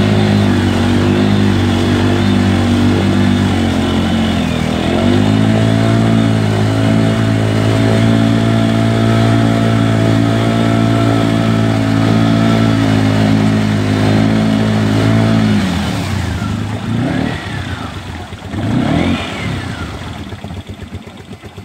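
ATV engine held at high revs while its tyres spin in deep mud, throwing it; the pitch steps up about five seconds in. About fifteen seconds in the throttle comes off, followed by two short revs as the engine winds down.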